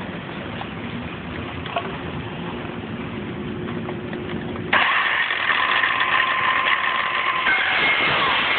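Ryobi One+ 18-volt cordless circular saw, on an old 1700 mAh battery, running free; about five seconds in the blade enters a pine 2x4 and the sound jumps to a much louder cutting noise. The saw bogs down in the cut because the old battery no longer holds its charge well.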